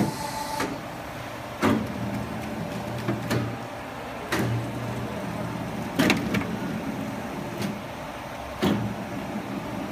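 Duct seam closing machine working a galvanized steel duct: a low motor hum that rises and falls, with sharp metallic knocks every one to two seconds.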